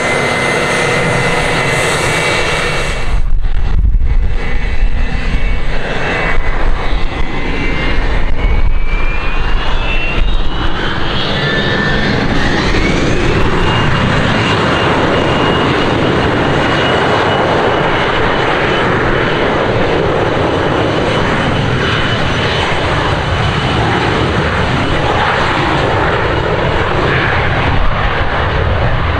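Twin turbofan engines of a business jet, run up for takeoff. The jet noise gets louder about three seconds in, and a whine climbs in pitch to about fourteen seconds in, then holds steady over the engine noise.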